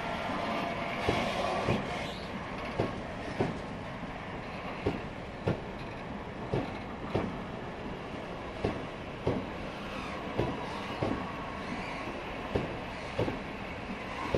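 Tank wagons of a slow freight train rolling past, their wheels knocking over a rail joint in evenly spaced pairs of clacks, two axles of each bogie in turn, over a steady rumble of wheels on rail.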